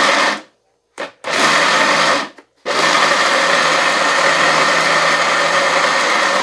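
Countertop blender grinding soaked canjica (hominy) corn kernels, switched on and off in pulses: it cuts out about half a second in, gives a quick blip and a short burst, then starts again before three seconds and runs steadily.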